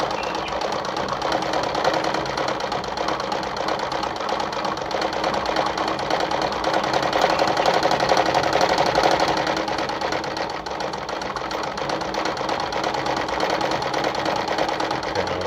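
Mercedes 340FB sewing machine worked by foot treadle, running steadily with a fast, even clatter while winding its bobbin; it runs a little harder around the middle.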